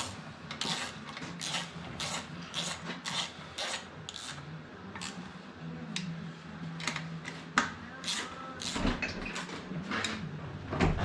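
Hand ratchet clicking in short strokes, about two a second, as the engine case-half bolts are run down, with a faint steady hum beneath.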